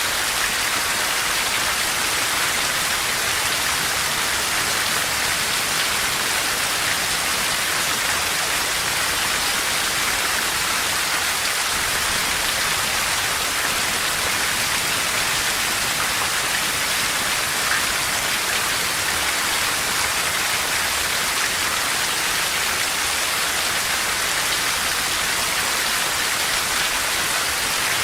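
Steady heavy rain falling in an even, unbroken hiss, with no thunder.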